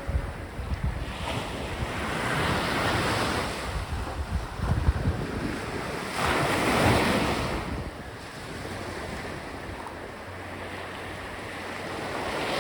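Sea waves breaking and washing up the beach, swelling and fading every few seconds, with wind buffeting the microphone.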